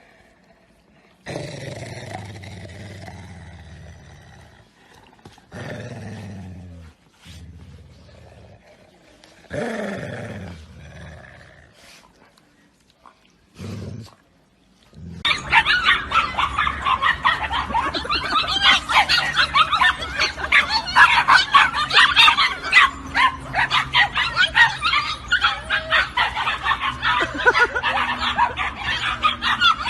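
Dogs vocalising: a few separate short calls that fall in pitch, then, about halfway through, a long stretch of rapid, continuous barking.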